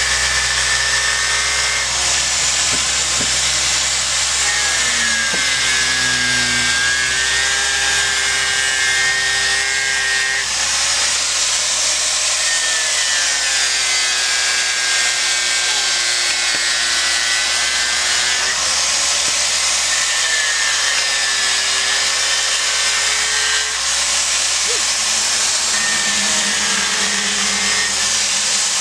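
Angle grinder running continuously with its disc against a block of monkeypod wood, a loud steady grinding noise. Its motor whine dips in pitch and climbs back several times as the disc is pressed into the wood and eased off.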